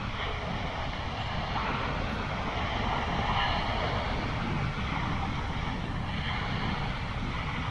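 Wind buffeting the microphone over the wash of small waves breaking on a sandy shore, swelling slightly a couple of seconds in.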